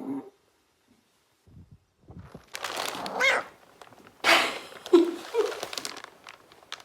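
Cat snoring in its sleep: a string of loud, noisy breaths, a few with a short squeaky tone in them, starting about two and a half seconds in. There is a brief rising cry at the very start.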